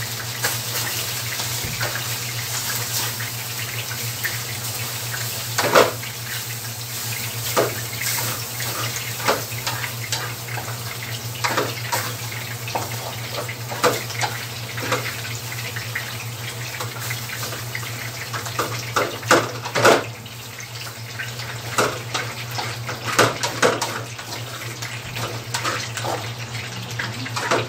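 Soy-sauced fried rice and sausages sizzling in frying pans, with a wooden spatula scraping and knocking against the pan at irregular moments as the rice is stirred. A steady low hum runs underneath.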